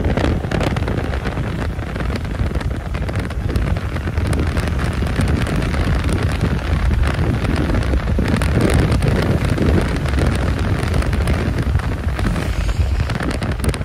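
Car driving on a wet road, heard from inside: steady road and tyre noise with wind buffeting the microphone.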